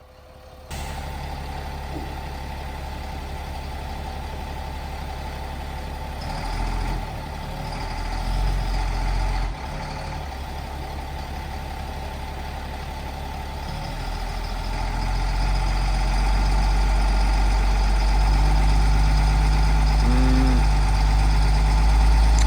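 A 6x6 vehicle's engine running under load as it pulls on a chain. It revs up a few seconds in, eases off, then revs up again and stays loud to the end.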